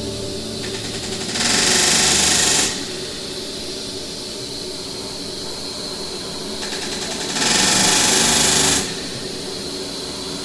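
Drill with a fluted cutter running in two short bursts of about a second and a half each, cutting at a hole in aluminium aircraft skin. A steady hiss runs underneath.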